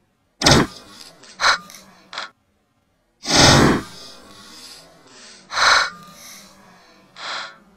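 Short Magazine Lee-Enfield bolt-action rifle firing .303 British rounds several times, the shots a couple of seconds apart with lighter sharp clicks between the first ones, emptying the magazine.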